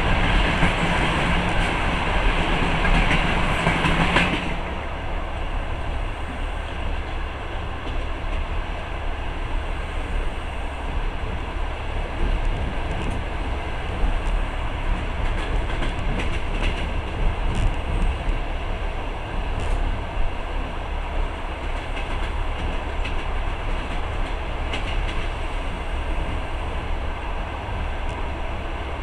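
Moving passenger train heard from inside the carriage: a steady low rumble of wheels on rails with scattered faint clicks. A louder rushing noise cuts off abruptly about four seconds in.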